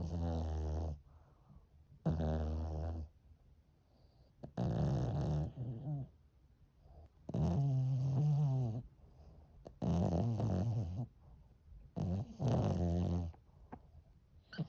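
Maltese dog snoring: six snores about two and a half seconds apart, each lasting about a second.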